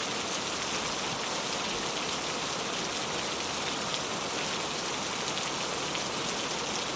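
Gentle rain falling steadily, an even hiss of rain with faint scattered drop ticks.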